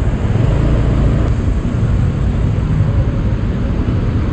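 Honda Click scooter's single-cylinder engine running at low speed, a steady hum mixed with wind and road noise, as the scooter rolls slowly.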